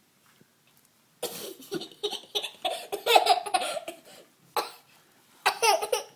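A young child laughing and squealing in bursts, starting about a second in, with a short burst and then another near the end.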